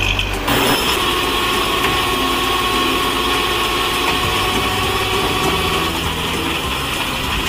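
Heavy tow truck engine idling steadily, with an abrupt change in the sound about half a second in.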